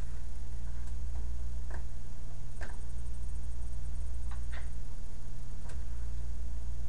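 Steady low electrical hum under a few soft, scattered ticks and taps: egg-coated zucchini slices being laid and pressed into a plastic tray of cornmeal.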